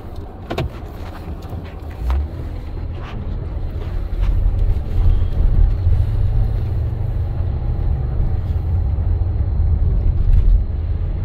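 Car engine and tyre noise heard from inside the cabin while driving on a wet, slushy street, as a steady low rumble that grows louder about four seconds in. A few light knocks come in the first three seconds.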